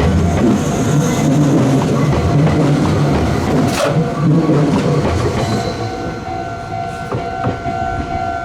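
Meitetsu 6000 series electric train pulling out of the station and running past, its wheels clacking over the rail joints. The low rumble thins out after about five seconds as it draws away, with a couple of sharp clicks near the end and a steady ringing tone throughout.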